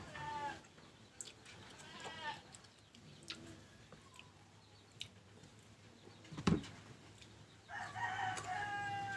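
A rooster crows once near the end, a long call lasting about a second and a half. Shorter chicken calls come earlier, and there is a single sharp knock about six and a half seconds in.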